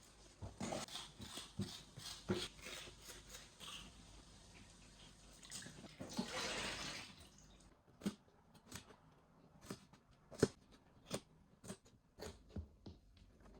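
Light knocks and clicks of objects being handled, with a short splash of water about six seconds in.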